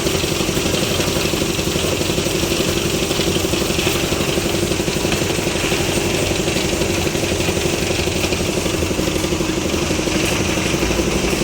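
Engine of a concrete lift machine running steadily at a constant speed, with a fast, even beat.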